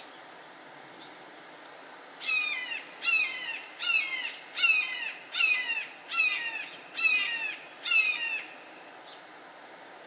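Red-shouldered hawk calling: a series of eight loud, downslurred screams about one a second, starting about two seconds in.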